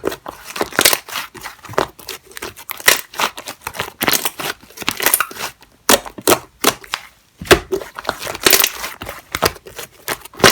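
Slime mixed with clear shaving foam being squeezed and pressed by hand, giving quick, irregular crackling pops and clicks, several a second, with brief pauses.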